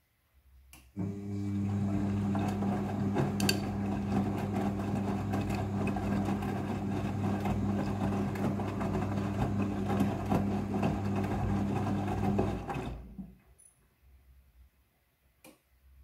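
Midea front-loading washing machine's drum motor starting with a click and running with a steady low hum, tumbling the wet laundry during the rinse cycle. It stops abruptly about thirteen seconds in, followed by another faint click near the end.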